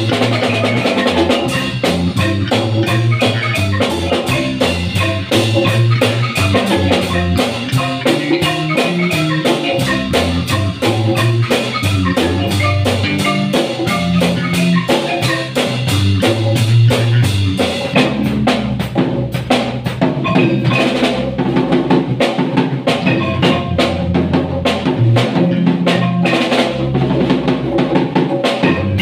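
Live marimba ensemble playing a dance tune: two players on one marimba, with a drum kit and congas keeping a steady beat.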